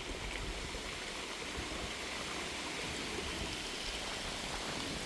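Steady wind hiss outdoors, with an uneven low rumble from wind buffeting the microphone.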